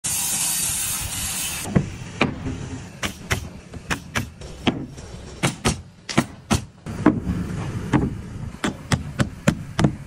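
Framing lumber being nailed: a string of sharp nailing impacts, roughly two a second and irregularly spaced. Before them, a loud hiss cuts off abruptly under two seconds in.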